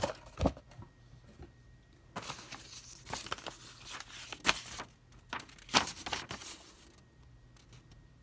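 Cardboard toy box and paper packaging being handled: a thump about half a second in, then rustling and crinkling with a few sharp knocks, dying down near the end.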